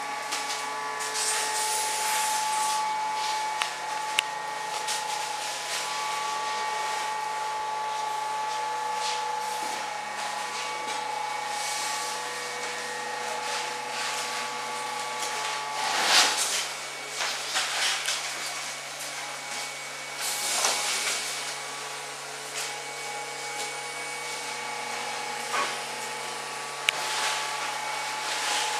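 CNC hot-wire foam cutting machine running: a steady machine hum with several held whining tones from its drive motors and electronics. Brief rushes of hiss come in now and then, the loudest about halfway through and again a few seconds later.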